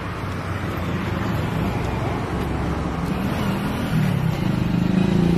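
Road traffic passing close by, with a vehicle engine getting louder and rising slightly in pitch near the end.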